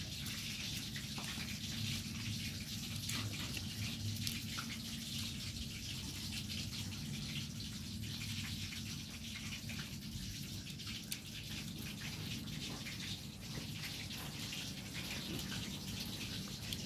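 A steady hiss over a low hum, with light clicks of chopsticks and dishes.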